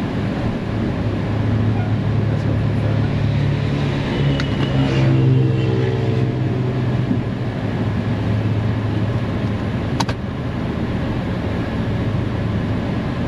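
Car engine running steadily at low speed as the car rolls into the bay, swelling about four to six seconds in, with a faint high brake squeak there; the squeak appeared after a recent front brake job and is traced to the left front wheel. A single sharp click about ten seconds in.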